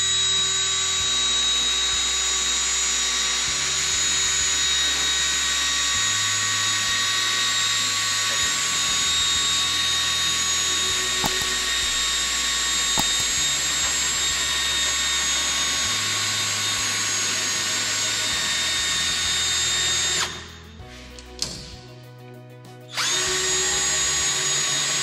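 Cordless drill running steadily, spinning a long hinge pin held in its chuck to feed it into the piano hinge of a fiberglass aircraft wingtip. The motor whine holds an even pitch, stops for a few seconds near the end, then starts again.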